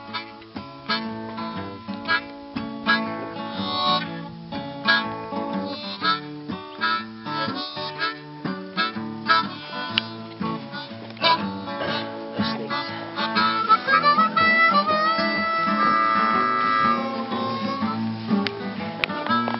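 Acoustic folk music: picked acoustic guitar with a harmonica playing the melody, the harmonica holding longer notes past the middle.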